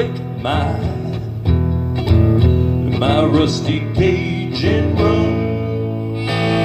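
Acoustic guitar strummed hard in a live solo performance, with a bending melody line over the chords. Near the end the strumming gives way to held, steady notes.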